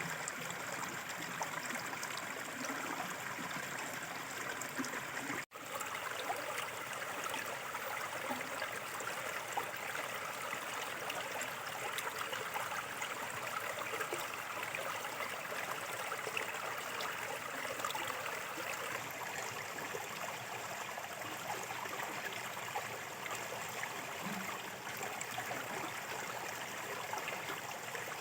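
Small river water flowing and trickling steadily. The sound drops out for a split second about five seconds in.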